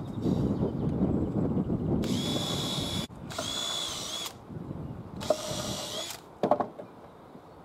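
Cordless drill boring pilot holes through a softwood board: three short runs of the motor's steady whine, each about a second long. A short knock follows near the end.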